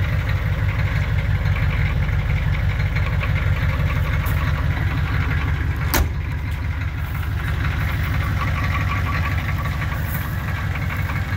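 Oldsmobile 5.7-litre (350) V8 diesel engine idling steadily. About halfway through, a single sharp thump as the car's door is shut.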